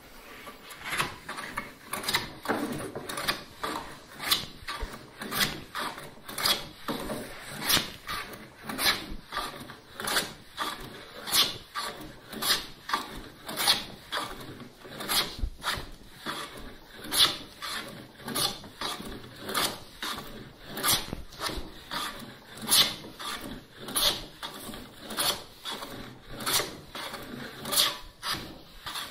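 Hand plane taking shavings off a softwood 2x4 in short, quick strokes at a steady rhythm of nearly two a second, each one a scraping cut. The board is twisted, and the planing is flattening its reference face.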